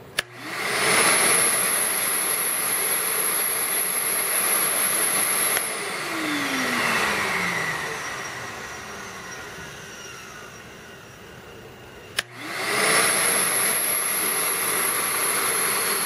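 Vacmaster Professional 9-gallon wet/dry shop vacuum switched on with a click, its motor spinning up at once to a steady high whine over a rush of air. About six seconds in it is switched off and winds down with a falling pitch. About twelve seconds in it is clicked on again and runs steadily.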